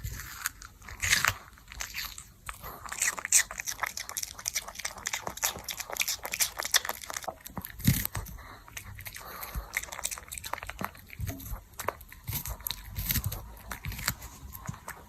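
A dog chewing and crunching cucumber, with many quick, crisp bites one after another.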